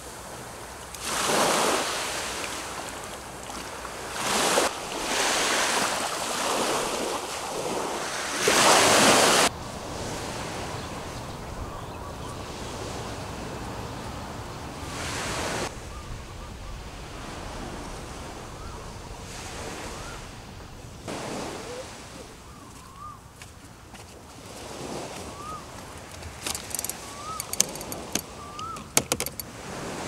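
Sea waves washing onto a beach, surging up every few seconds, strongest through the first ten seconds. Near the end, light clicks and knocks, with a few short rising chirps.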